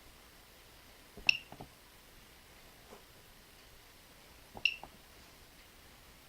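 Coins dropped into a home-built Arduino coin bank and sorter, twice: each drop gives a sharp click with a short high beep, then two or three softer clicks as the coin runs through the sorter.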